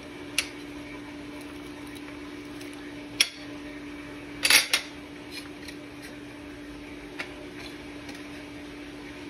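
A kitchen knife clinks and taps against a ceramic plate while a jalapeño is sliced and handled: a few sharp clicks, the loudest a short clatter a little past the middle. A steady hum runs underneath.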